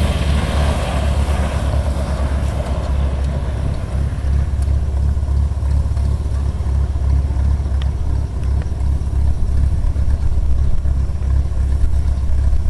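Cessna 182 Skylane's piston engine and propeller running at low power with a steady low drone. A rush of air noise over it dies away over the first couple of seconds as the aircraft slows after landing.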